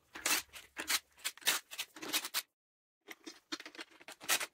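Irregular metallic clicks, taps and scrapes of tools and sockets on the steel nuts of the turbocharger studs as they are worked off, stopping dead for about half a second midway.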